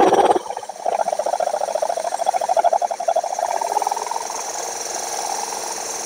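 Power drill spinning a diamond-tipped hole-saw bit against the base of a clay pot, with a fast, chattering grind as the bit works to bite into the fired clay. It settles into a steadier grind about four seconds in.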